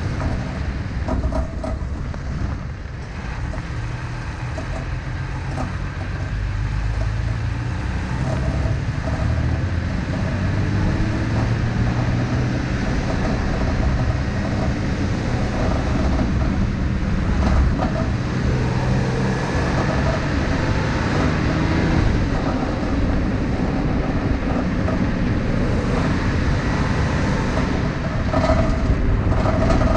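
Steady rumble of tyres rolling on a graded dirt road, heard from under the moving Toyota truck, with a few short knocks from the undercarriage or thrown stones.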